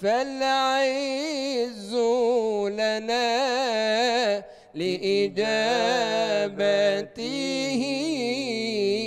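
A male munshid singing an Islamic praise song (madih) solo, in long melismatic phrases with much wavering ornament. There is a short breath break about halfway through.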